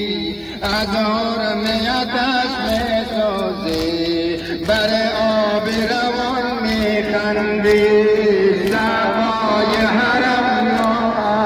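A voice chanting a Shia mourning lament (noha) in a wavering, ornamented melody over a steady low drone, with sharp beats about once a second.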